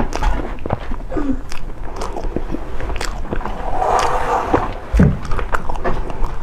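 Close-miked eating: cake being bitten and chewed, with a quick run of wet mouth clicks and smacks. A duller thump comes about five seconds in.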